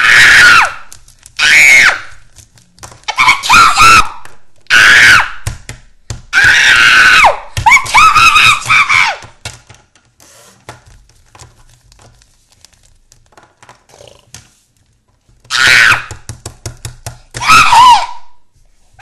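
A child's voice screaming loudly in about eight shrill bursts, several rising and falling in pitch: play-acted screams voicing toy figures in a fight. In a gap of about six seconds in the middle there are only light taps and clicks of plastic figures being handled.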